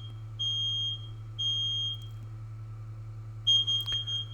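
Smoke alarm sounding on its test button with high-pitched beeps in the three-beep pattern: two beeps, a pause of about a second and a half, then the next round starting near the end. A steady low hum lies underneath, and there is a click near the end.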